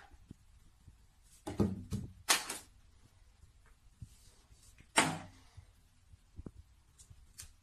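Plastic toiletry bottles being knocked over by a cat and landing on a tiled shelf: a couple of hollow knocks about a second and a half in, another sharp knock about five seconds in, and a few faint taps later.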